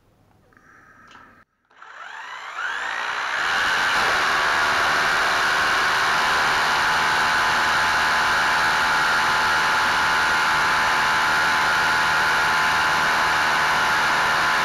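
Electric drill spinning up with a rising whine, then running steadily and loudly as it drills into a concrete ceiling, with the bit hitting the steel reinforcement bar.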